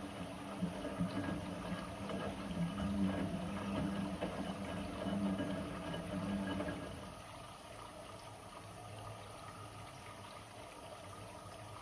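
Blomberg WA391 washing machine running its wash cycle, with a motor hum and water sloshing. About seven seconds in the hum drops away and it goes quieter.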